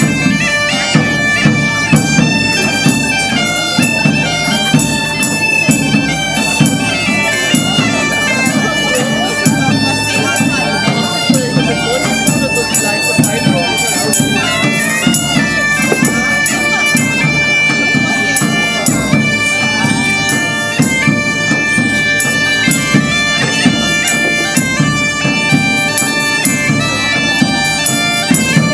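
Two bagpipes playing a lively medieval-style tune over their steady drones, with a drum beating a regular rhythm underneath.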